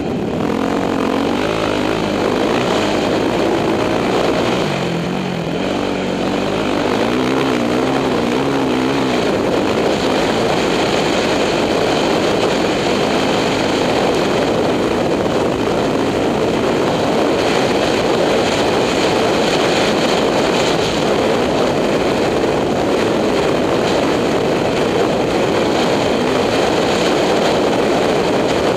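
2006 Yamaha YZ450F's four-stroke single-cylinder engine running under load as the dirt bike rides a sandy trail. It eases off briefly about five seconds in, then pulls steadily again.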